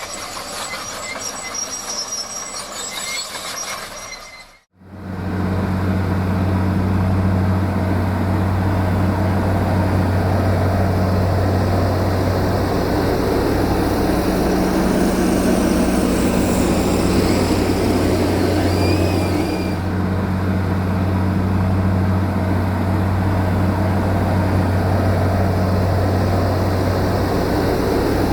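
Heavy earth-moving machinery: a large diesel engine runs steadily with a deep drone. Before an abrupt cut about four and a half seconds in, the machine sound is rougher and noisier, with some high squeaks.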